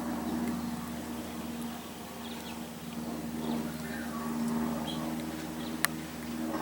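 Faint songbird chirps over a steady low hum, with one sharp click near the end.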